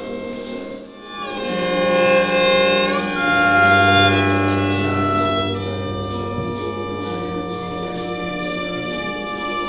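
String quartet of violins and cello bowing long held chords. After a brief dip about a second in, the chord swells louder, a low note joins around three seconds in, and the chord then settles back to a softer sustained sound.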